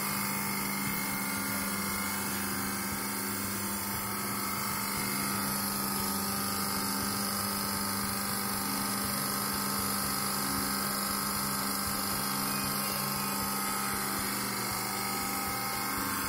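Electric hydraulic pump of a Controls compression-testing press running steadily, a constant hum with a whine over it, as the press loads the test cube at the start of a compression test.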